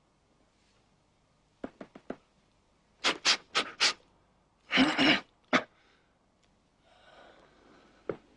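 A few sharp clicks, then a man panting in four quick, hissy breaths followed by a louder, longer gasp about five seconds in.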